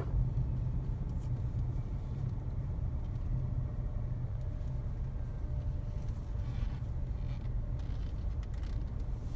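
Several Victorian T-class diesel-electric locomotives hauling a freight train past, giving a steady low rumble.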